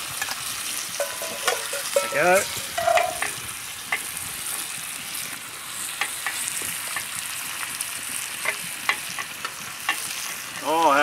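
Metal ladle and spoons clinking and scraping against a steaming pot of soup and metal mess tins as food is served out, a scatter of short clinks over a steady hiss.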